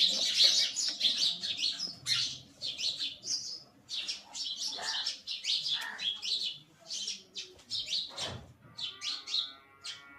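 House sparrows chirping. At first many short chirps overlap in a busy chatter, and later they come sparser and more spaced out.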